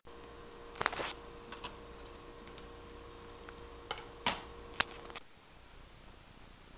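Plastic chopsticks clicking against a ceramic bowl of instant ramen: a handful of sharp, irregular ticks over a faint steady hum, which stops abruptly with a cut about five seconds in.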